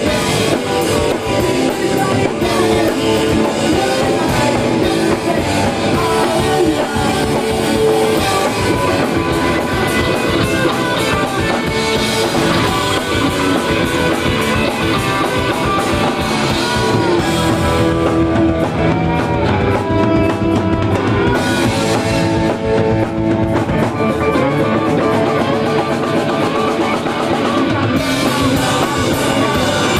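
Live rock band playing loud, fast guitar rock: electric guitars, bass and drum kit, with a singer at the microphone.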